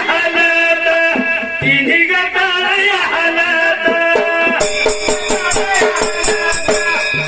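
Dhangari ovi folk music: a sustained, bending melody over steady held tones, with jingling rattle percussion that becomes a crisp, regular beat a little past halfway.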